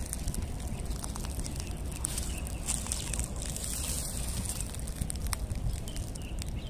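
Footsteps crunching and crackling through a thick layer of dry fallen leaves, with a steady low rumble of wind on the microphone.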